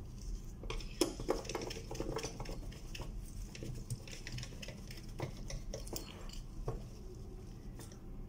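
Light metallic clicks and clinks as an aluminium lamp mount is handled and a screwdriver turns its screws, most frequent in the first three seconds.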